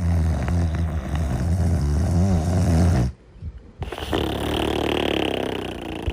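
Heavy snoring in sleep: a loud, low buzzing snore on the in-breath lasting about three seconds, a short pause, then a breathier, hissing out-breath.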